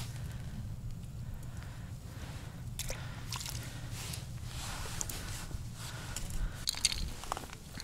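Ice crunching and scraping in an iced-over ice-fishing hole: irregular crunches and scrapes, with a few sharper clicks near the end, over a steady low rumble.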